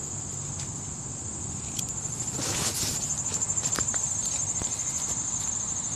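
A steady, high-pitched insect chorus with a fast even pulse. About two and a half seconds in there is a brief rustle, followed by a few light clicks.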